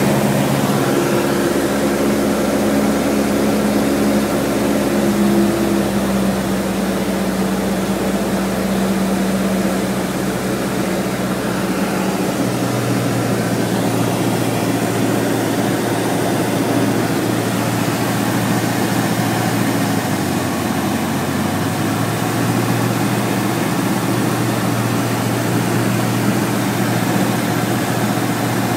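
Light single-engine aircraft's four-cylinder piston engine and propeller running steadily. About twelve seconds in, the engine note steps down to a lower pitch and holds there, as the throttle is eased back.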